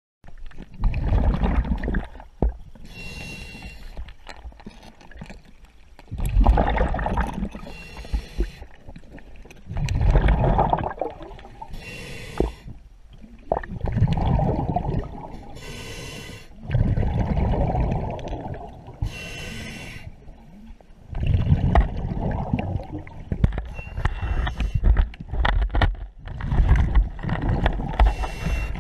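Scuba diver breathing through an open-circuit regulator underwater, picked up by a GoPro camera: a short hissing inhale, then a loud rush of exhaled bubbles, about once every four seconds.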